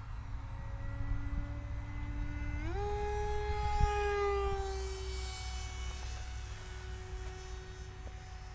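Radio-controlled plane's motor and propeller whining in flight; the pitch jumps up about three seconds in as the throttle is opened, the sound is loudest just after as the plane passes, then sags slightly and holds steady. Low wind rumble on the microphone underneath.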